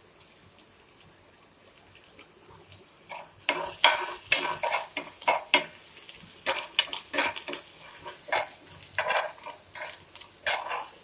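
Chopped ginger and green chillies frying in hot mustard oil with a faint sizzle. From about three and a half seconds in, a spoon stirs them, scraping and knocking against the pan in quick, irregular strokes.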